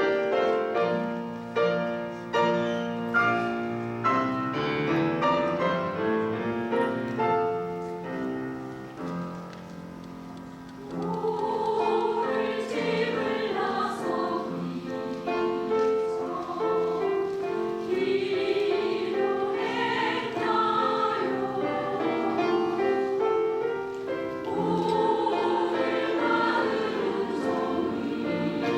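Women's choir singing with piano accompaniment. The piano plays alone at first, softening near ten seconds in, and the choir comes in about eleven seconds in.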